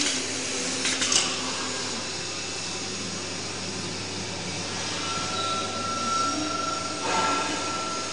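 Automatic screen printing machine with UV curing unit running, a steady rushing of air from its fans. There are a couple of short clicks about a second in and a faint steady tone near the end.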